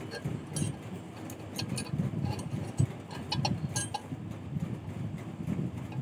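Scattered light metallic clicks and clinks of wire being handled and worked at a bench vise, mostly in the first four seconds, over a steady low rumble.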